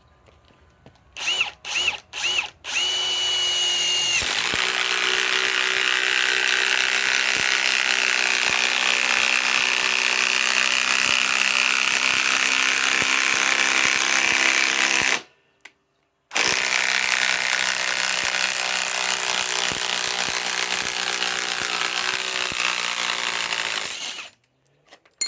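Ryobi PSBIW25 compact impact wrench: three short trigger bursts and a brief free-spinning whine, then it hammers continuously as it drives a long screw into wood. It stops for about a second, then hammers again for several more seconds before stopping.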